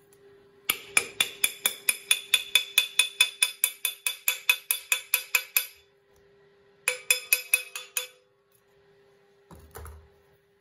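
Freshly cast brass casting tree being shaken and knocked free of foundry sand. It rings with a quick run of metallic clinks, about six a second for some five seconds, then a second short run, and a duller knock near the end.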